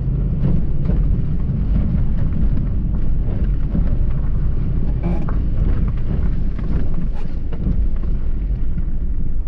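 Car cabin rumble from driving slowly over a wet, potholed road, a steady low noise with scattered small ticks and knocks throughout.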